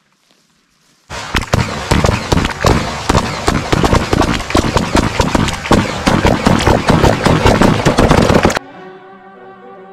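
Several rifles firing rapidly together, a dense run of overlapping loud shots that starts about a second in and cuts off abruptly near the end, where quieter orchestral string music takes over.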